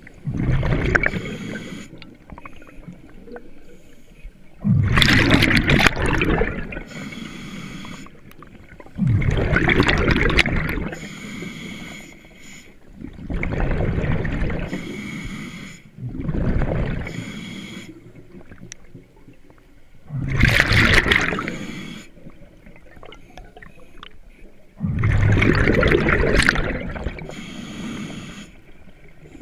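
Scuba diver breathing through a regulator underwater: a loud burst of breath and bubbles roughly every four seconds, seven in all, with quieter gaps between.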